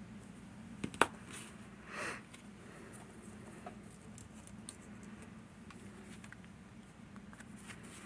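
A Fichet 787 lever lock being operated: a couple of sharp metallic clicks about a second in, the second the loudest, a brief rustle about two seconds in, then scattered faint ticks over a low steady hum.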